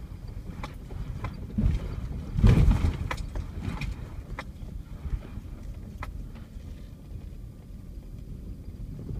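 A vehicle's cabin noise on a rough dirt trail: a low rumble of engine and tyres, with scattered clicks and rattles and two louder thumps about one and a half and two and a half seconds in.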